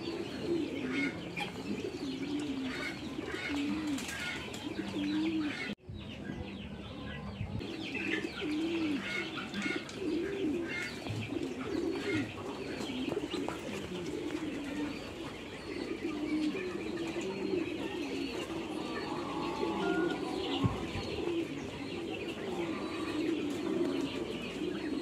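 Poultry-yard birds calling: a steady run of low cooing calls, about one a second, with higher chirps over them. There is a short break about six seconds in.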